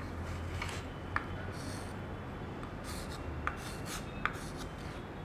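Chalk scratching on a small writing slate in several short strokes, with a few sharp taps as the chalk meets the slate.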